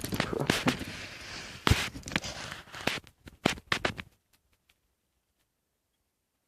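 Irregular crackling and sharp clicks from handling a balisong trainer comb and its packaging, which cut off suddenly to silence about four seconds in.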